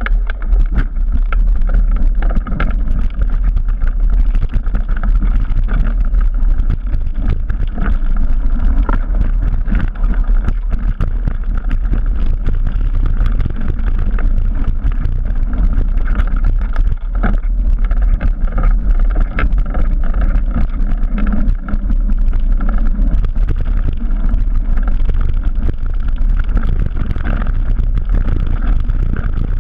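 Trek Remedy 9 full-suspension mountain bike descending a dirt singletrack at speed, heard from a camera on the bike: a continuous low rumble from the tyres and wind on the microphone, with constant irregular rattling and knocks as the bike runs over roots and stones.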